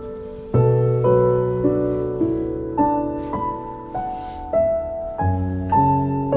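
Slow, gentle piano background music: single notes struck about every half second, each fading away, over deeper notes that change every few seconds.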